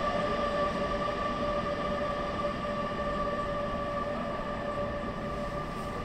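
Metro train pulling out of a station: a steady whine with two clear high tones over a rumbling noise, slowly fading as it moves away.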